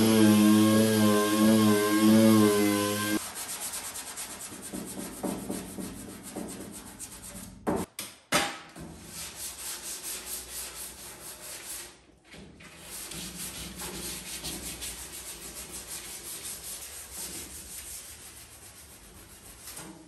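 A dual-action orbital sander runs at a steady pitch on a Chevrolet C10 truck hood for about three seconds. Then comes quieter hand sanding, sandpaper rubbing in quick strokes over the steel cab, with a single loud knock about eight seconds in.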